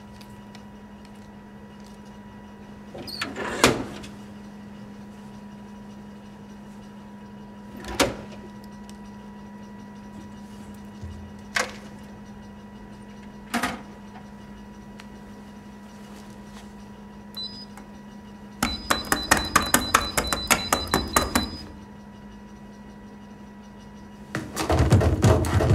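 Vending machine humming steadily, broken by four single thumps a few seconds apart. About three quarters through comes a three-second run of fast clicks with a faint high beep, and near the end a loud, rapid barrage of knocks begins.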